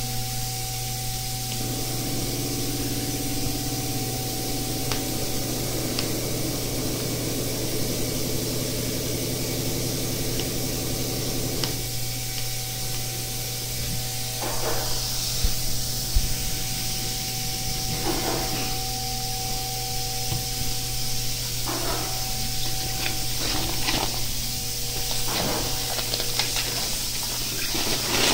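Steady hiss over a low hum from shop machinery running, with a few short scratchy sounds in the second half as the freshly sprayed GatorHyde bedliner coating is handled.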